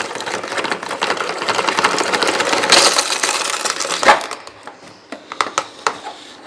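Dense dry crunching and crackling, as of dry rusk or bread being crushed and crumbled, thinning to scattered separate clicks after about four seconds.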